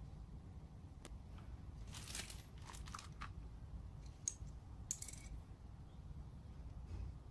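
Scattered handling sounds from unboxing the keyboard: a sharp click about a second in, then several short, irregular crinkly rustles and clicks, over a low steady hum.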